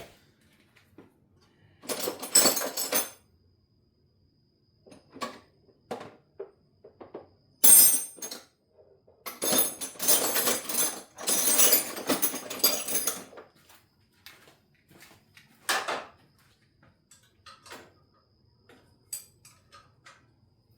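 Metal hand tools clattering and clinking in several bursts, the longest about nine seconds in and lasting some four seconds, with small clicks and taps between.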